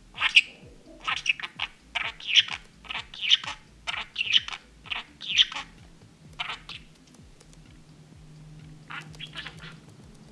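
Budgerigar chattering close by: a quick run of short, high, squeaky warbles and chirps for the first seven seconds or so, then a few quieter ones near the end.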